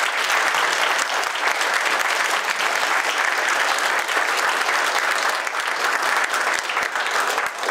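A roomful of seated audience members applauding, dense steady clapping.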